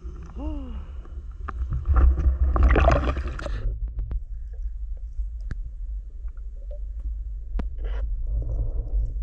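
Water splashing and gurgling as a spearfisher dives, loudest for about two seconds, then the low muffled rumble of being underwater with a few sharp clicks.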